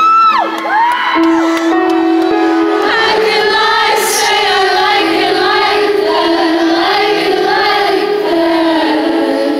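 Live pop concert heard from within the crowd: sustained keyboard notes under singing. A loud sung note close by opens it, and from about three seconds in many audience voices sing along.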